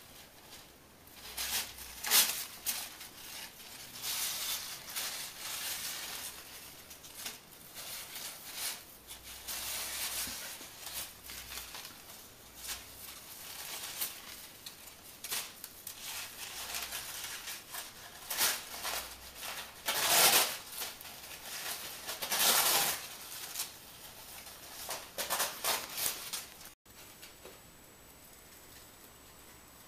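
Paper rustling and crinkling in irregular bursts as a rabbit noses, tugs and drags a crumpled sheet of paper across a tile floor. Near the end it drops to a quieter hiss with a faint steady high tone.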